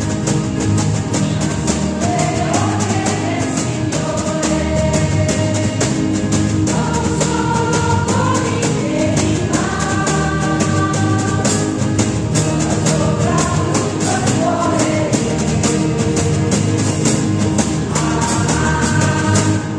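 Mixed choir singing a church hymn, accompanied by steadily strummed acoustic guitars.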